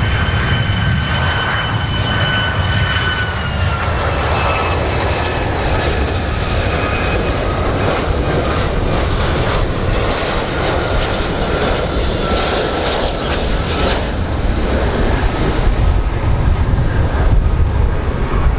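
Boeing 757 jet airliner on final approach with its landing gear down: a steady rumble from its twin turbofan engines under a high whine that steps down in pitch a few seconds in.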